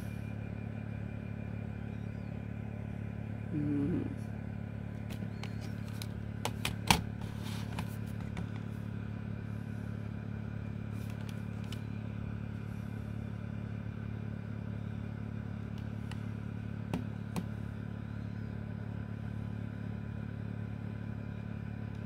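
Sharp plastic clicks from a Sony WM-FX425 cassette Walkman being handled, with its buttons and switches worked: a cluster of clicks about a third of the way in and two more later. A steady low hum underlies it.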